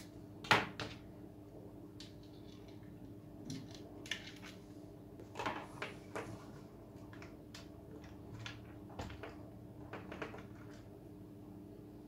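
Handling noises from a hard plastic frame being turned over and moved on a workbench: scattered clicks and knocks, the sharpest about half a second in, over a steady low hum.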